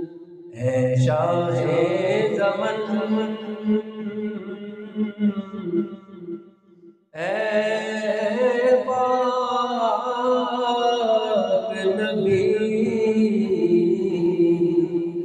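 A man singing a naat unaccompanied into a microphone, drawing out long, sliding held notes. There is a short breath pause about halfway through.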